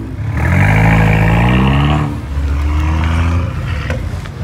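A car engine being revved: the pitch climbs for about a second and a half, drops, then holds at a steadier rev before easing off near the end.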